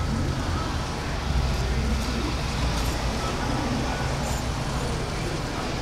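A 1972 Dodge Challenger's engine idling close to the grille, a steady low rumble. A minivan rolls slowly past about four seconds in.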